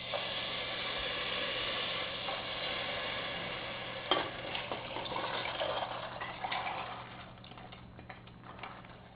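Hot onion, tomato and spice base sizzling in a steel pot as soaked red kidney beans and their soaking water are spooned in. The sizzle starts suddenly and fades over the last few seconds. A sharp click about four seconds in is followed by lighter clinks and scrapes of a spoon against the ceramic bowl and pot.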